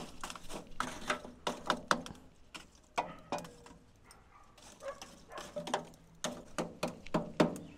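Freshly lit open cooking fire crackling as it catches, with irregular sharp cracks and pops.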